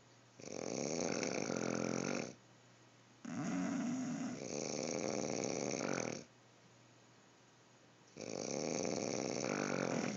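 Snoring: three long snores, each lasting two to three seconds, with quiet pauses between them.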